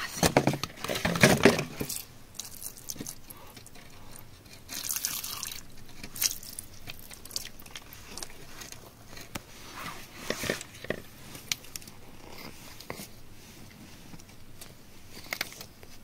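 Crunching and scraping of crumbly wet clay and rock being broken away around embedded stones, loudest and densest in the first two seconds, then scattered crackles and small clicks.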